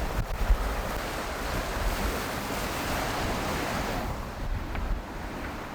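Seawater rushing along the hulls of a Seawind 1600 sailing catamaran running at about 10 knots under spinnaker, with wind buffeting the microphone. The rush eases a little about four seconds in.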